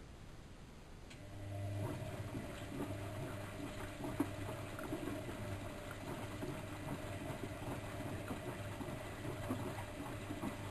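Bauknecht WAK7760 washing machine with water rushing and gurgling through it over a steady electric hum, starting about a second and a half in.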